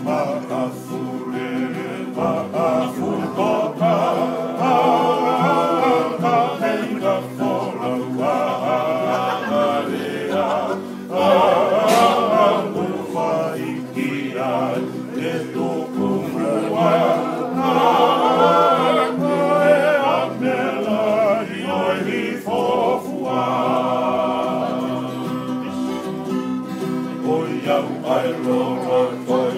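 A group of men singing together, accompanied by strummed acoustic guitars and a ukulele.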